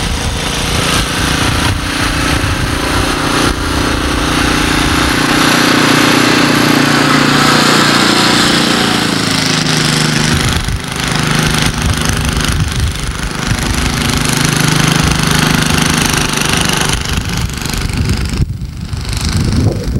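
Snowblower's small engine running steadily, its pitch sagging briefly and recovering as it takes load, under a loud broad hiss that drops away near the end.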